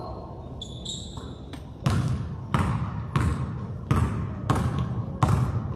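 Basketball dribbled on a hard gym floor: six bounces at a steady pace of about one every 0.6 seconds, starting about two seconds in, each with a short ring in the hall.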